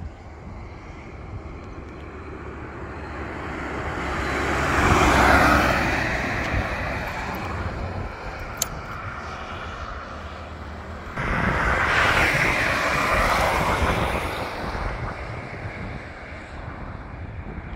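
Vehicles passing on a highway: one swells to its loudest about five seconds in and fades away, and a second comes in abruptly about eleven seconds in and fades over the next few seconds. Wind rumbles on the microphone underneath, and a brief sharp tick comes in between the two passes.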